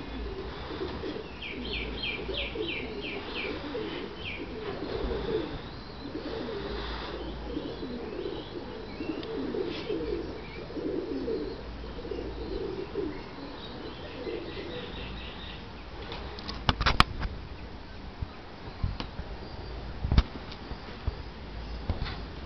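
Pigeons cooing in low, warbling phrases, with a small bird's quick series of high chirps near the start and again more faintly past the middle. A few sharp knocks come about three-quarters through and are the loudest sounds.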